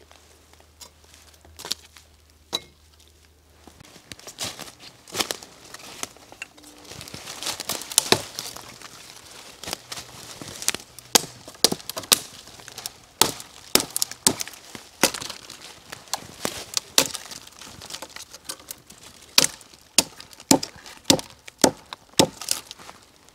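Wood being chopped or split by hand with a small tool: a string of sharp, irregular knocks and cracks, starting a few seconds in, about one to three a second.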